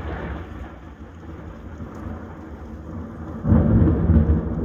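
Thunder rumbling over steady rain, heard through a window. A much louder thunderclap breaks about three and a half seconds in and rolls on.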